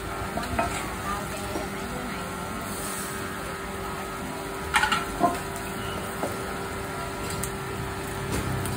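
Bánh xèo batter sizzling steadily in pans over charcoal stoves, with two sharp clinks of a metal utensil against a pan about five seconds in.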